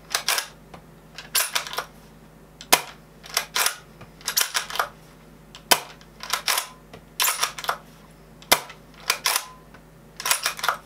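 Steel bolt of a Double Bell (DBoys) Kar98K bolt-action airsoft replica being worked repeatedly, lifted, pulled back and pushed home, in sharp metallic clicks and clacks about once a second as it extracts and ejects its dummy shells one round after another.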